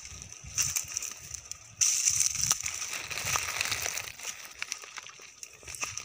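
Footsteps crunching through dry leaf litter and twigs, with brittle brush crackling and rustling as it is pushed aside; a louder, denser stretch of crackling starts suddenly about two seconds in.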